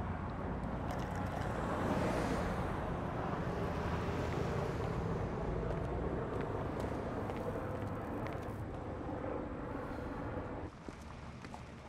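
Outdoor traffic ambience: a steady hum of road traffic that swells about two seconds in, then drops away abruptly near the end.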